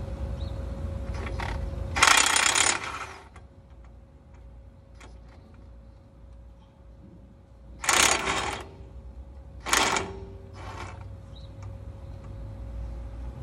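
Metal parts of a truck's front axle and steering knuckle clanking and scraping in a few short, loud bursts while being worked by hand: the loudest about two seconds in, then two more around eight and ten seconds. A faint steady hum runs underneath.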